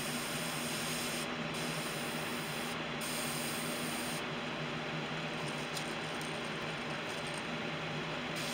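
Iwata airbrush spraying gray paint: a steady hiss of air and paint, over a low steady hum. The sharpest part of the hiss drops away briefly twice, then for about four seconds from about four seconds in.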